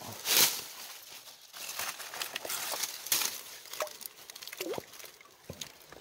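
Hands shifting stones in shallow stream water around a rock crevice: splashing, rustling and small knocks. The loudest is a short rush of noise just after the start.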